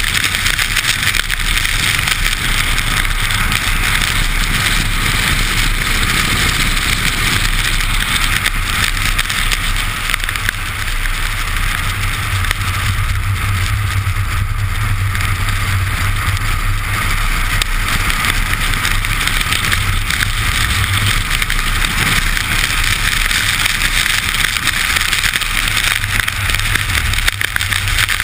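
Steady rush of wind and wet-tyre hiss from a camera mounted low by the wheel of a Škoda Octavia RS at track speed on wet tarmac, with the engine's low drone underneath. The drone grows stronger from about twelve seconds in and eases off again about eight seconds later.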